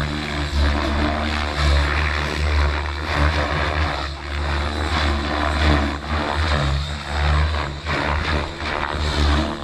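XLPower 550 radio-controlled helicopter flying aerobatics: its rotor blades whoosh steadily, swelling and fading in loudness about once a second as it flips and banks.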